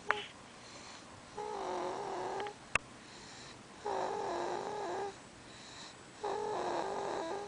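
Light snoring during sleep: three soft, slightly whistly snores, each about a second long and coming about every two and a half seconds, with a sharp click near the start and another about a third of the way in.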